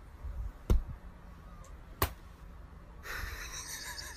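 Two sharp taps a little over a second apart over a low room rumble; about three seconds in, a higher crackling hiss sets in.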